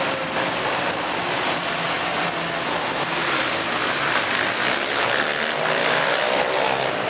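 A pack of racing three-wheeler ATC engines running hard together, many engines at once. Several engines rev upward in overlapping rising whines in the second half.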